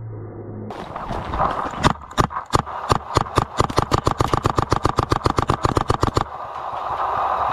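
Electropneumatic Adrenalin Angel LCD paintball marker firing a long rapid string of shots, about six or seven a second. It starts about a second and a half in and stops near the end.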